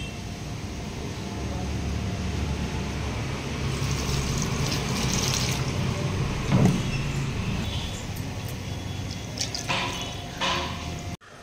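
Water poured from a plastic bowl onto the dry soil of potted houseplants, splashing and trickling, with a short knock about six and a half seconds in and a little clatter near the end.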